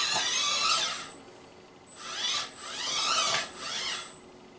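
mBot Ranger tracked robot's geared electric drive motors whining as it is driven in spurts from a tablet, the pitch wavering with the speed. It runs for about the first second, then in three short bursts with brief gaps.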